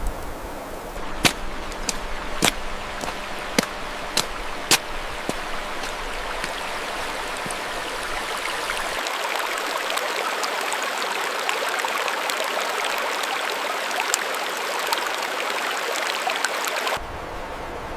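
Mountain stream flowing, a steady rush of water. Several sharp ticks sound in the first few seconds.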